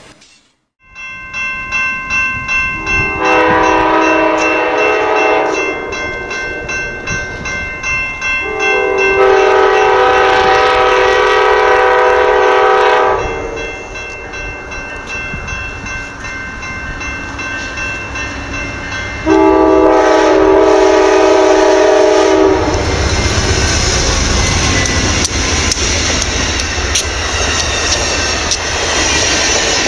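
Amtrak passenger train, led by a P32-8 locomotive, approaching a grade crossing with the crossing bell ringing. The locomotive horn sounds three long multi-note blasts, then the train passes close by with a loud rumble of wheels on the rails.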